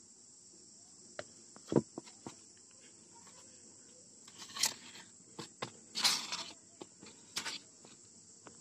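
Handling noise as a small Bluetooth speaker circuit board and its wires are moved about on a styrofoam and paper worktop: scattered light knocks, the loudest a thump about two seconds in, and a few short rustles later on, over a steady high hiss.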